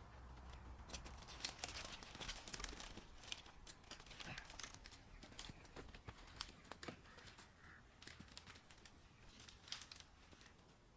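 Near silence with faint, scattered crackling and rustling clicks.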